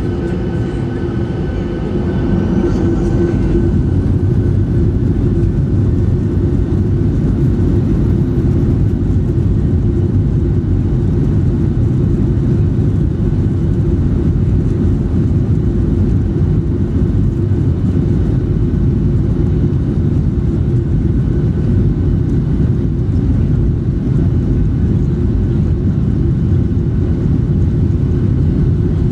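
Jet airliner noise heard from inside the cabin of a Skymark Boeing 737-800: a steady low roar of engines and airflow that gets louder about two seconds in and then holds, with a faint whine fading out over the first few seconds.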